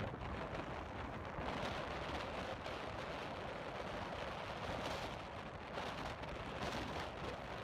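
Steady rushing noise of rainwater running in a desert wadi, mixed with wind buffeting the microphone.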